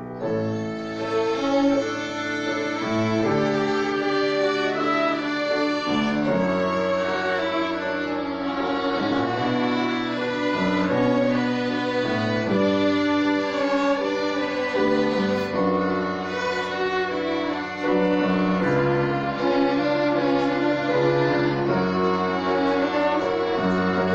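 A children's violin ensemble playing a piece together. Bowed melody notes change about once a second over a lower accompanying part.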